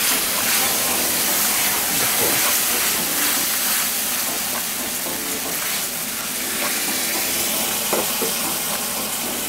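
Garlic and ketchup sauce sizzling steadily in hot oil in a frying pan over a gas burner; the pan flares up with flame at the start.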